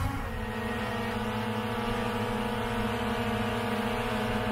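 DJI Mavic Air 2-series quadcopter on LED propellers hovering low after take-off. Its motors and propellers make a steady buzzing whine that holds one pitch.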